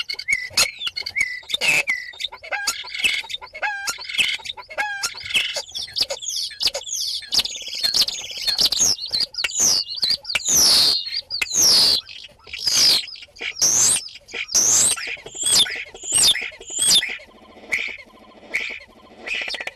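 Common starling singing close up inside its nest box: a rambling mix of whistles, chirps, clicks and rattles, then, from about eight seconds in, a run of loud downward-sliding whistles repeated about once a second.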